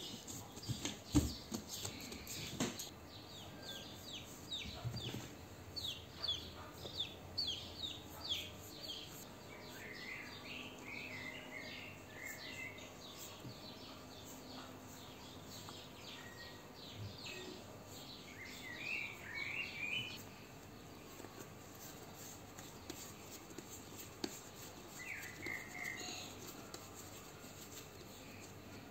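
Small birds chirping in the background: a quick run of short descending chirps, then brief warbled calls now and then. A few soft knocks in the first couple of seconds.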